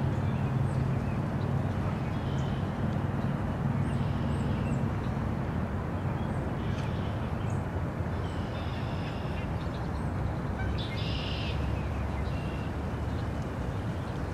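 Small birds chirping now and then over a steady outdoor background noise, with a low hum that fades out after the first few seconds.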